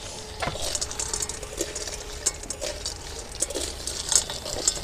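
Small freshwater snails in their shells sizzling in hot oil in a wok, with scattered clicks of shell against shell and against the pan as they are stirred.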